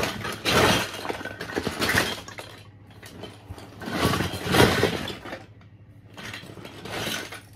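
Loose plastic Lego bricks and small toy pieces clattering and clinking as they are rummaged through and moved into a storage box, in several bursts.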